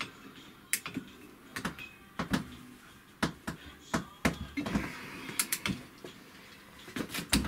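Irregular metal clicks and knocks of a wrench working on the clutch end of an IZh Planeta Sport engine, the clutch nut being tightened while a stopper tool holds the gear.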